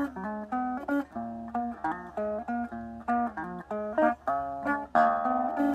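Electric guitar playing a quick line of single picked notes, several a second, with a fuller chord ringing near the end.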